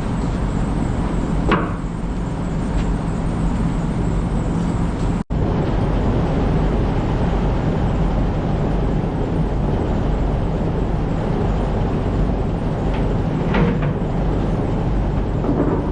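An engine running steadily and loud, with a deep hum and a few faint knocks over it, and a brief cut about five seconds in.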